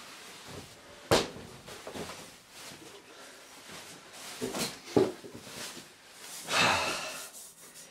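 Handling noises from an aluminium Mac Pro tower case being gripped and shifted by hand: a sharp knock about a second in, another knock about five seconds in, and a rustling scrape near the end.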